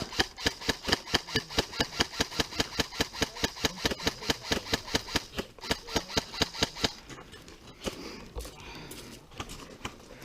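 Airsoft electric gun (AEG) firing a long string of evenly spaced shots, about seven a second, stopping about seven seconds in. The gun is running on a 7.4 V battery instead of an 11.1 V one, which the owner says makes it sound bad.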